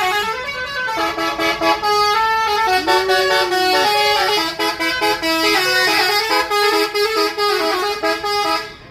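A bus's basuri musical air horn playing a long 'telolet' melody of many notes, changing pitch several times a second, that cuts off near the end.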